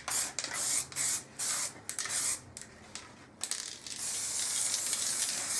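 Aerosol can of matt black acrylic spray paint hissing in a run of short bursts, then one longer spray of about two seconds in the second half.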